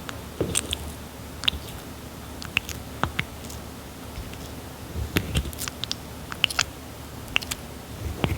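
Red-footed tortoise biting and chewing soft papaya: irregular wet snaps and squishy clicks, bunched in a few quick runs of bites.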